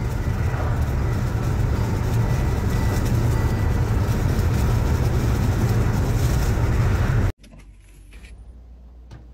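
Road and wind noise of a moving car, heard inside the cabin with a window rolled down: a steady low rushing. It cuts off suddenly about seven seconds in, leaving a much quieter stretch with a few faint clicks.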